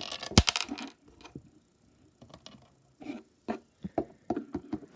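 Small hard toy pieces being handled and knocked together: a quick cluster of clicks and clatter at the start, then scattered single taps and clicks.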